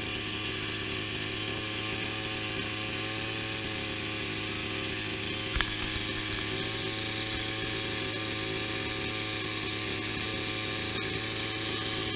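Steady drone of a small motor running at constant speed, with a single knock about halfway through.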